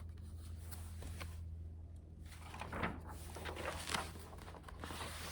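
Faint rustling and a few light clicks from a picture book being handled and its page turned, over a steady low hum of room tone.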